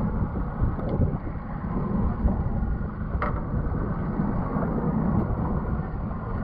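Wind buffeting the microphone with a steady low rumble on an open boat at sea, and a single short click about three seconds in.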